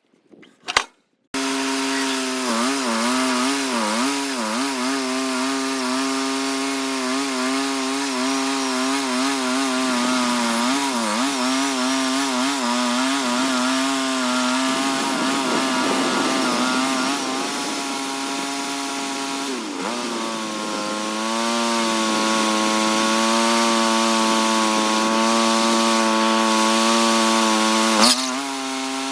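Gas-engine saw running under load, cutting through a large locust log. It starts suddenly about a second in, after two short knocks. Its pitch wavers as the load changes, dips once, then holds steadier for the rest of the cut.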